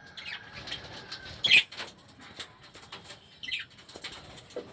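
A flock of lovebirds chirping, with sharp high chirps about one and a half seconds in and again near three and a half seconds, over scattered clicks and rustles.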